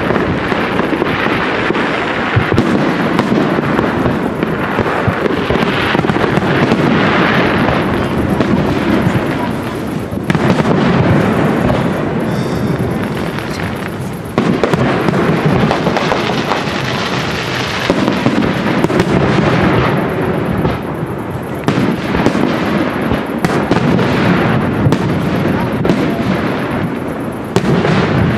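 Aerial firework shells bursting one after another, sharp bangs over a continuous background din.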